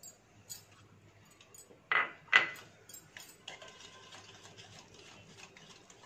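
Wire whisk stirring wheat flour into oil and sugar in a bowl: a scraping, rubbing noise with small clicks, and two louder knocks about two seconds in.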